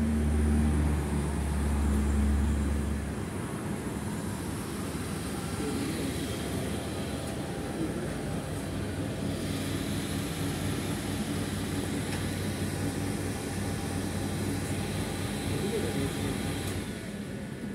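A nearby vehicle engine running steadily, with a louder low rumble for the first three seconds and then a steady lower hum.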